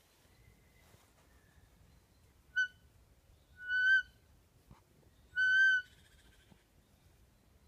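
Three clear whistled notes at one high pitch: a short one, then two longer ones about a second and a half apart, the middle one rising slightly at its end.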